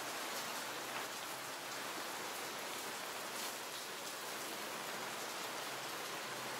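Steady light rain, an even hiss with scattered faint ticks of drops.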